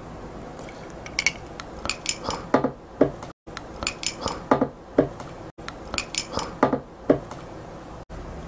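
Ice cubes clinking against a glass beer mug as it is handled: a quick, irregular series of sharp clinks in short runs.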